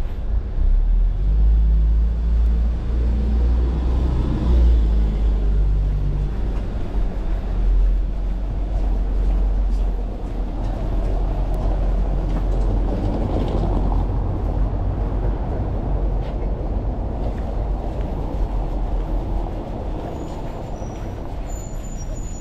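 Street traffic: a large motor vehicle's engine running close by, loudest over the first several seconds with a low engine note, then easing into a steadier, quieter traffic noise.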